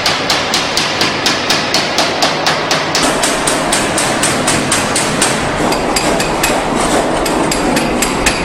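Rapid, evenly spaced hammer blows on metal, about four a second, over a steady workshop din. A low rumble comes in about three seconds in, and the blows grow less regular near the end.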